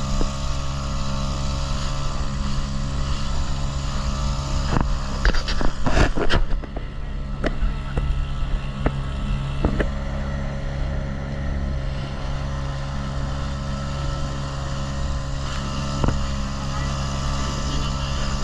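Motorboat engine running steadily, with a quick cluster of knocks about five seconds in and a few single knocks later.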